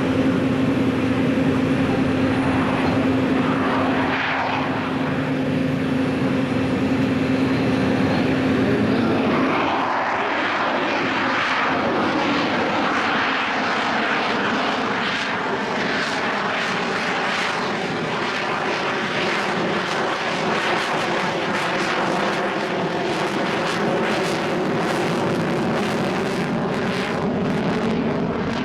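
Twin General Electric F414 turbofan engines of a Boeing F/A-18F Super Hornet in a flying display. A steady humming tone for roughly the first nine seconds gives way to a rough jet roar whose pitch slowly wavers.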